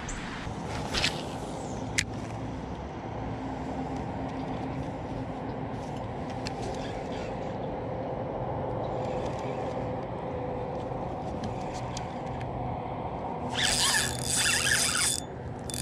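Electric kayak motor running steadily, a low even hum. Near the end a loud burst of hissing noise cuts in for about a second and a half.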